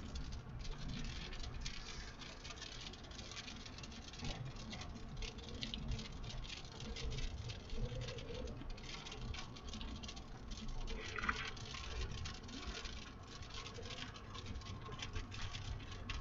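Rain pattering on a moving vehicle's windows and roof, a dense run of small ticks over a low road rumble.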